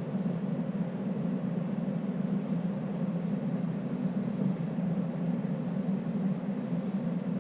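Electric heater of a 3D printer enclosure running, a steady whir with a low hum and no change.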